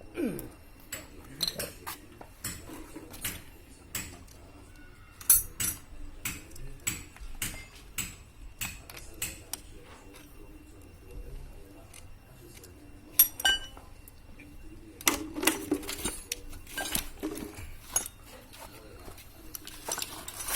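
Irregular metal clinks and knocks of tools and parts being handled during work on the car, with a few louder clanks about five seconds in, near thirteen seconds and a cluster around fifteen to seventeen seconds.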